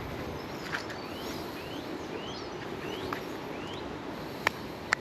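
A bird calls a run of about six short rising notes over a steady outdoor rush, and two sharp clicks come near the end.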